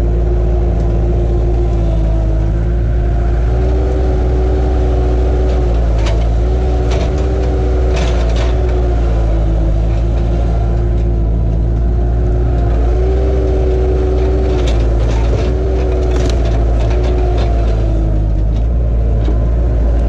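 Bobcat 864 tracked skid steer running under load as it drives and works its grapple, the diesel engine note wavering slightly up and down. A few short knocks and clanks come through, mostly in the middle and later part.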